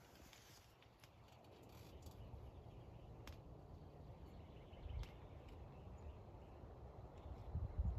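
Quiet outdoor ambience with a few faint sharp clicks and a low thump about five seconds in.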